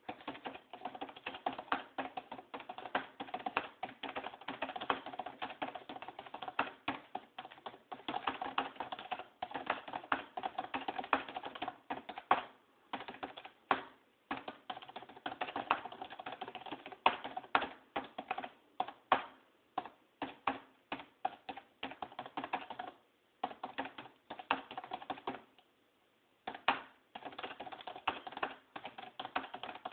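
Fast typing on a keyboard: a rapid, continuous run of key clicks, broken by a few short pauses.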